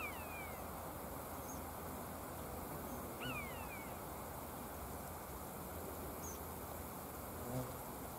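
Common buzzard giving its mewing call, a falling, drawn-out 'peeyow', twice, about three seconds apart, over a steady background hiss. A brief low thump comes near the end.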